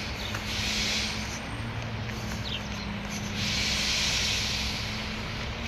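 Mack LE garbage truck's diesel engine idling at a distance, a steady low hum, with two spells of hiss: one about half a second in and a longer one from about three seconds in.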